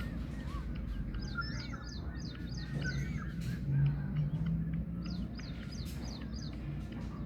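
Birds calling with many short, quick chirps, some high and some lower, over a steady low hum that swells briefly in the middle.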